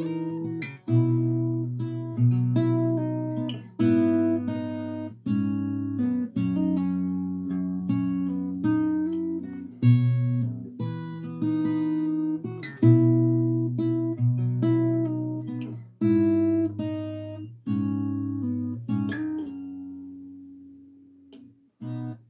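Acoustic guitar played fingerstyle: a chord-melody line of plucked notes over ringing bass and chords, in a steady phrase. Near the end a chord is left to ring and fades away.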